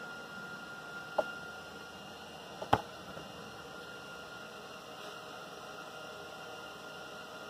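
Steady electrical hum and hiss with a faint constant tone, broken by two short clicks: a small one about a second in and a sharper, louder one near three seconds in.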